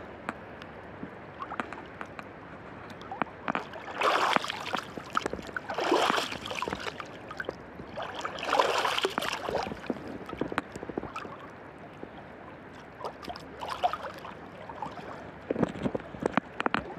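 Sea water lapping and sloshing around a swimmer close to the phone's microphone, with many small clicks and plops of water. Three louder splashy surges come about four, six and eight and a half seconds in.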